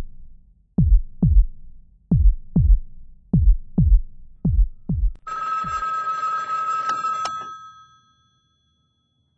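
Heartbeat sound effect: low double thumps, about one pair a second, four times. About five seconds in, a telephone ring with a steady high electronic tone takes over for nearly three seconds.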